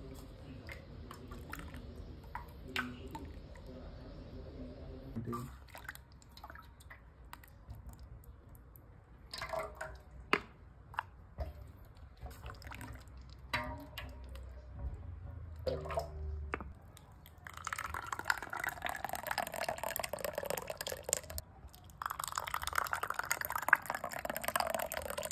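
Metal kulfi tins clinking and knocking as they are dipped and set down, then thick kulfi mix pouring and splashing into the tins in two long spells near the end.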